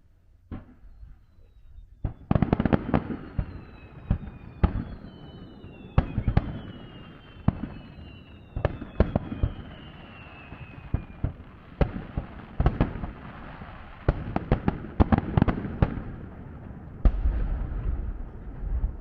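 Fireworks display: a rapid, irregular series of bangs and crackles from shells bursting, with several whistles falling in pitch during the first half and a low rumble near the end.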